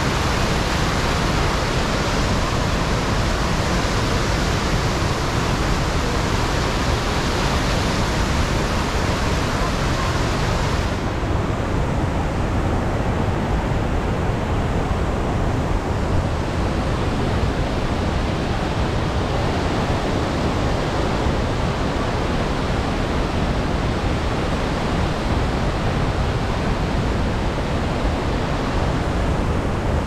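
Steady roar of rushing water from the Iguazu River's rapids and falls. About eleven seconds in, the hiss in the highs drops away suddenly and the roar carries on duller.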